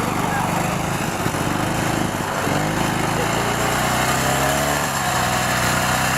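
A small petrol engine running steadily.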